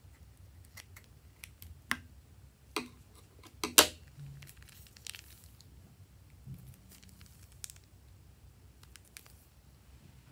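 Scissors snipping the tip off a plastic piping bag: a series of sharp snips and clicks, the loudest about four seconds in. After that, the plastic bag crinkles as it is squeezed, with a few light clicks.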